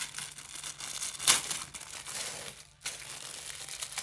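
A cutlery wrapper crinkling and rustling as it is pulled open to take out the spoons, with one sharper crackle about a second in.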